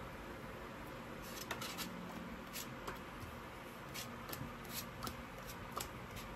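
Tarot cards being drawn from a deck and laid down one after another on a tabletop: faint, irregular light clicks and slides.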